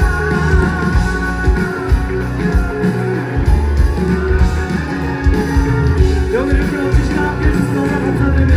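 Live band music with guitar, bass and drums, played loud.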